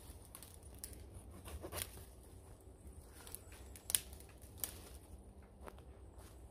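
Dry dead twigs snapping and crackling as they are broken off and gathered by hand: a few sharp snaps, the loudest about four seconds in.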